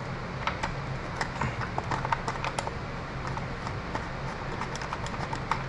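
Screwdriver backing a screw out of the underside of a Minn Kota Ultrex Quest trolling-motor control head: a run of small, irregular clicks and ticks as the tool turns and reseats in the screw.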